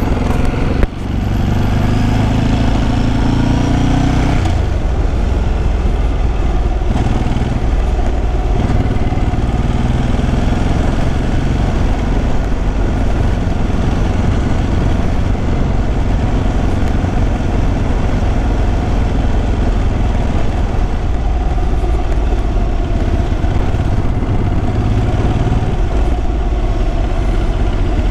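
Ducati sportbike's L-twin engine pulling away under throughput of throttle, its pitch rising for about four seconds, then easing off and running steadily at town riding speed.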